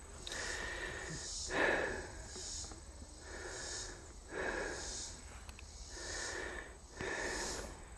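A hiker's breathing close to the microphone while walking a trail, a soft, even rhythm of about one breath a second.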